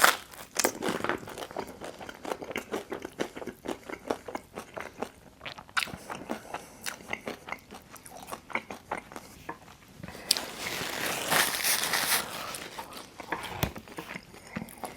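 Close-miked biting, crunching and chewing of Detroit-style pizza, with a run of crisp crunches and a denser crackling stretch about ten seconds in.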